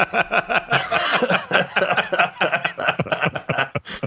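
Men laughing together after a joke, in quick repeated bursts of laughter.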